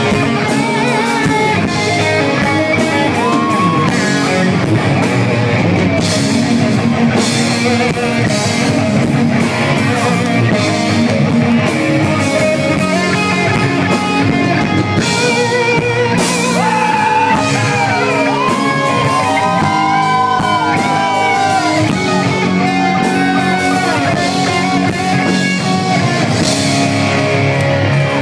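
Live rock band playing loud: an electric guitar lead line with bending notes over a drum kit. The bends come mostly in the second half.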